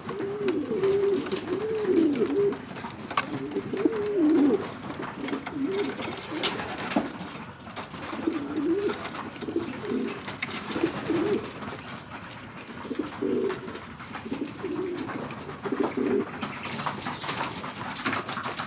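Pigeons cooing, several wavering low calls one after another, with scattered sharp clicks and taps. The cooing thins out near the end.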